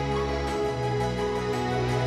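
Background music: gentle instrumental track with sustained chords over a bass line.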